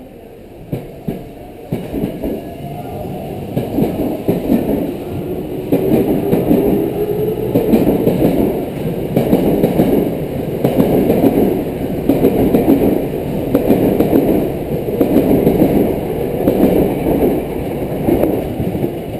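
Tokyo Metro 7000 series electric train pulling out and accelerating past. The traction motor whine rises in pitch as it gathers speed, and the wheels clack over rail joints in a steady rhythm that grows louder, then eases near the end as the last cars go by.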